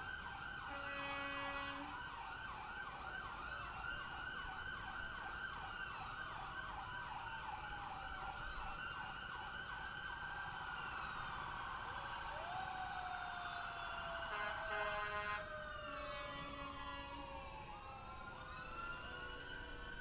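Several emergency-vehicle sirens sounding at once: a fast yelp cycling a few times a second, then slower wails rising and falling. Two short horn blasts cut through, the louder one about three-quarters of the way through.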